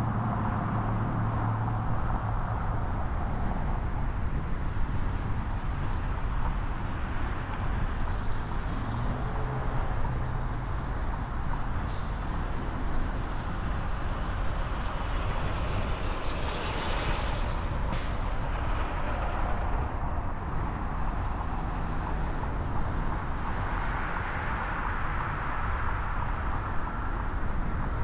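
Car driving in city traffic: steady engine and road noise, with two short hisses about halfway through and about two-thirds of the way through.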